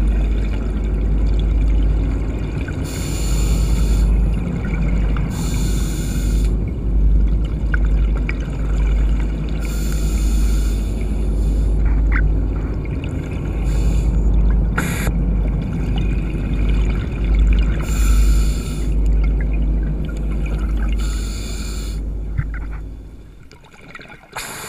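Underwater sound of a scuba diver breathing through a regulator: a hiss of air and a rush of exhaled bubbles about every few seconds, over a steady low rumble. The sound dips quieter near the end.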